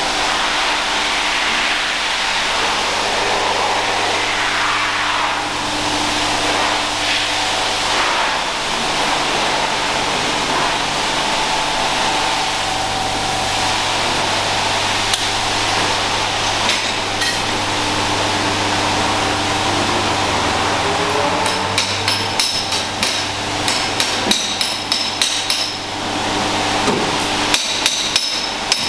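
Hammer striking sheet metal in a body shop, over a steady machine hum. The blows are scattered at first, then come thick and fast, with a bright metallic ring, over the last several seconds.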